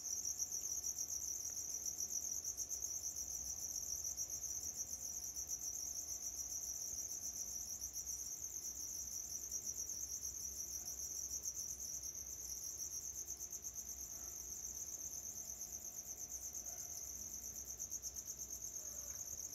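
Crickets chirping steadily in the background: a continuous high-pitched trill with a rapid pulse that holds for the whole stretch.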